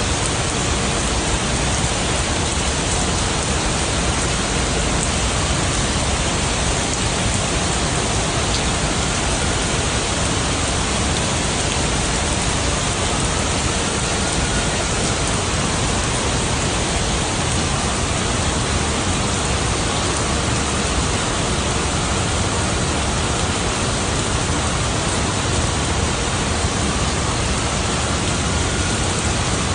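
Steady rain, an even hiss with no pauses and no single drops standing out.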